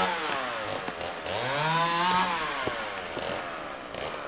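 Hedge trimmer motor whirring up to speed and winding down again in repeated bursts as it is switched on and off while cutting a hedge.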